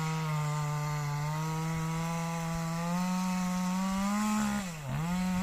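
Two-stroke chainsaw running at high revs with a steady whine. Its pitch steps up about three seconds in, then drops sharply and comes back up near the end.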